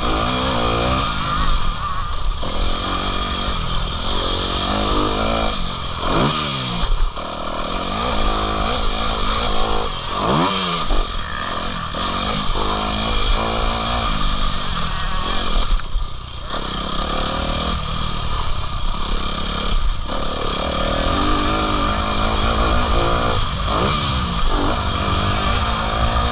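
Motocross bike engine revving hard and backing off over and over, its pitch climbing and falling sharply with throttle and gear changes, with a brief drop in power about 16 seconds in.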